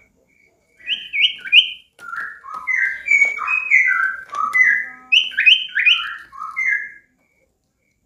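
Common iora (sirtu, cipow) singing in full voice: a quick, varied run of short clear whistled notes that jump up and down in pitch. The song starts about a second in and stops about a second before the end.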